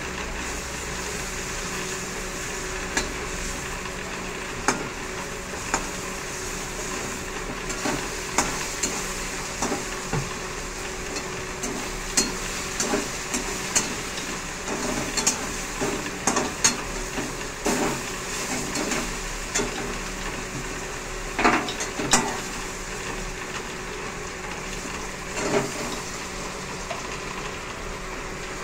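Egg-battered chicken pieces sizzling steadily as they fry in oil in a metal kadai, with irregular clinks and scrapes of a metal spatula against the pan as the pieces are turned. The knocks come thickest past the middle, and the loudest pair comes about three-quarters of the way through.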